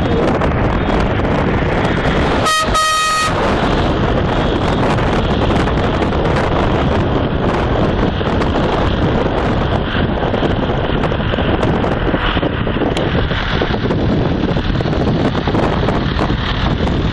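A car horn sounds once, a single blast of under a second about two and a half seconds in, over a steady loud rush of road traffic and wind on the microphone.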